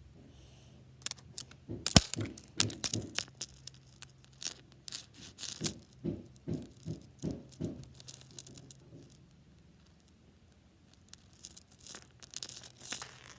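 Small hard objects being handled, clicking and rattling in quick irregular runs. The clicking pauses for a second or two, then picks up again near the end.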